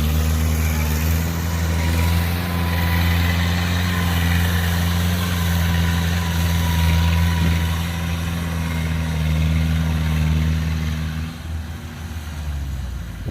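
Kubota DC105X combine harvester's diesel engine running steadily at working speed, with a steady hiss over it. About eleven seconds in the engine note drops and slides lower as it throttles down.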